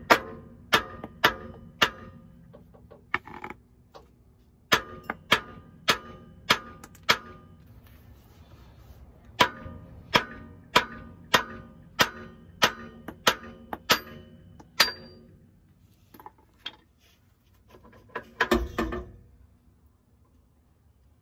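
Hammer blows on the steel driveshaft yoke at the differential's pinion flange, knocking the driveshaft loose: sharp metallic strikes that ring. They come in three runs of several blows, about two-thirds of a second apart, with pauses between, and a short rattling clunk follows near the end.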